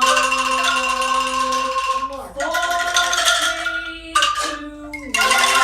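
Singing with music: a voice holds long notes and slides from one to the next, with short breaks between phrases.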